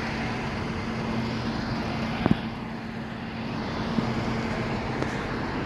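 Steady vehicle engine and traffic noise with a constant low hum, broken by a few short clicks.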